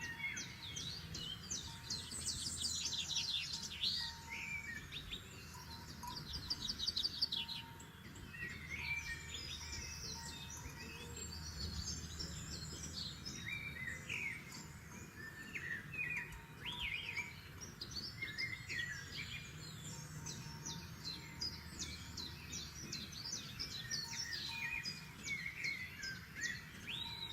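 Several forest songbirds singing at once, with fast trills and short chirps overlapping throughout.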